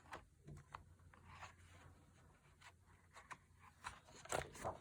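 Faint rustling and a scatter of small clicks from a picture book being handled, over a low steady hum, with a few sharper ticks about four seconds in.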